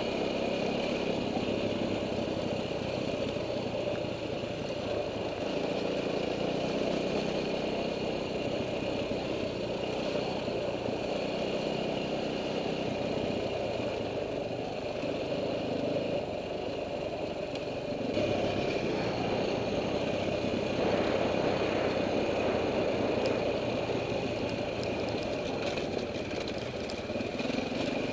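KTM dirt bike engine running steadily at modest revs while riding, picked up by a helmet camera. The loudness rises a little about two-thirds of the way through.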